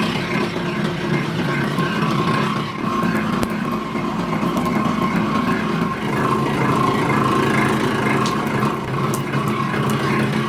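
Factory machinery running with a steady hum, with a few sharp clicks near the end.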